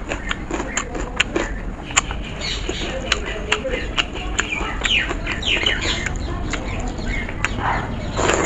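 Fingers squishing and mixing wet soaked rice on a steel plate, with many sharp wet clicks, and a mouthful taken near the end. Chickens cluck in the background from about two and a half seconds in.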